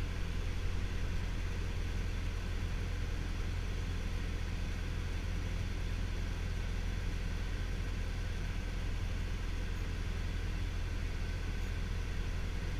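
Piston engine and propeller of a light single-engine aircraft droning steadily, heard inside the cockpit, with no change in pitch.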